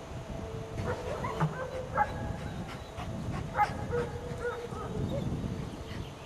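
German Shepherd dog giving a string of short, high whines and yips while heeling, the dog's excited squeaks coming in a quick scatter from about a second in until about five seconds in.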